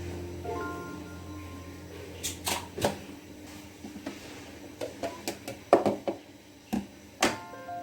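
Irregular sharp clicks and knocks, about a dozen, mostly in the middle and latter part, over faint background music.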